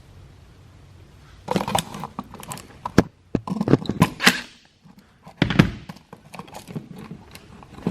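Irregular clicks, knocks and rustling from an electrical wall outlet, its wires and hand tools being handled. The sounds start about a second and a half in, with sharp single clicks about halfway through and again a little later.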